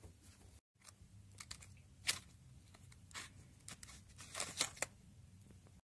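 Foil lid being peeled off a Kinder Joy egg: faint crinkling and tearing in short, scattered bursts, the sharpest about two seconds in and a quick cluster near the end.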